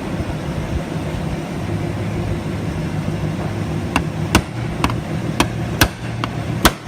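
Hammer striking a vintage trailer's sheet-metal body about seven times in quick succession, starting about four seconds in, knocking a hole inward into a funnel shape so it can be filled with Bondo. A steady low hum runs underneath.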